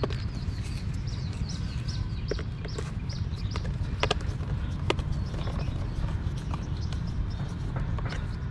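Small screwdriver driving a screw into the plastic body of a toy truck: scattered sharp clicks and ticks of metal on hard plastic, the strongest about four and five seconds in. Under it a steady low background hum, and a run of short high chirps through the first four seconds.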